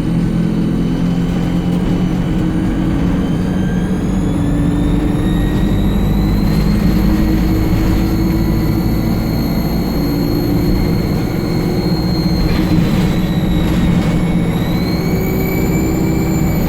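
ADL Enviro 200 bus's diesel engine running under load with a loud, high-pitched turbocharger whistle. The whistle rises in pitch as the bus pulls away and holds steady, then drops briefly and climbs again near the end.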